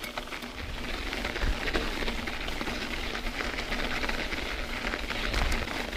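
Bicycle tyres rolling over packed snow: a steady crunching hiss full of small ticks, with a low rumble underneath.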